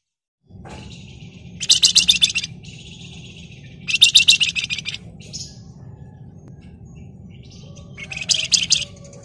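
Flamboyan (wergan Jawa) songbird singing: three loud, very fast rattling trills, each under a second long, with softer chirps between them, over a low steady rumble of background noise.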